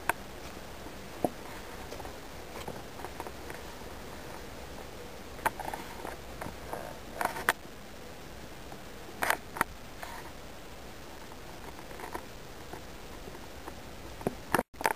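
Handling noise from a handheld camera: irregular soft clicks and scrapes over a steady hiss, with the sound cutting out for an instant near the end.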